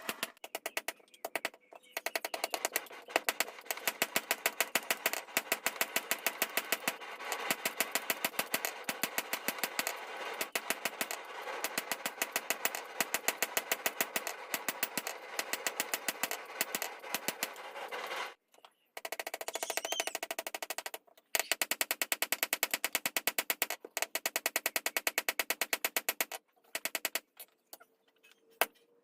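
Rapid, evenly spaced hammer blows on steel from a vehicle leaf spring being forged into a blade, a fast machine-like rhythm that breaks off briefly twice and stops near the end.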